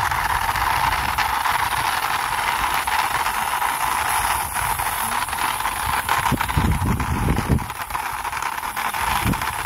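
Plastic toy motorbike pushed by hand along a rough concrete wall, its small plastic wheels rolling with a steady grinding rumble.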